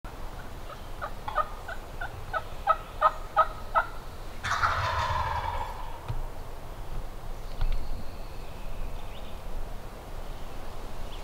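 A run of about ten short, evenly spaced yelping notes, then a wild turkey gobbler gobbling once: a loud, rattling call that falls in pitch, about four and a half seconds in.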